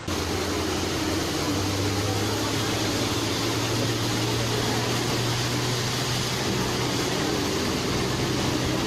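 A vehicle engine running steadily over a constant hiss, its low hum stepping up slightly in pitch about a second and a half in.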